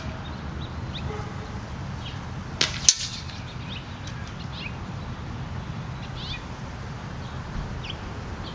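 A shot from a Remington Airmaster 77 .177 pellet gun: a fainter report, then about a quarter second later the louder sharp crack of the pellet hitting a steel plate target, about three seconds in. Small birds chirp now and then.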